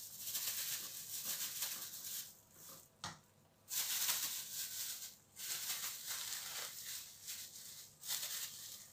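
Thin plastic bag crinkling and rustling as it is handled and filled with soft fufu, in irregular bursts with a few brief pauses.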